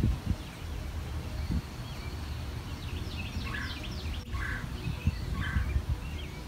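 Birds calling in the open over a low rumble of wind on the microphone: runs of short, high chirps, and in the second half several harsh calls about a second apart.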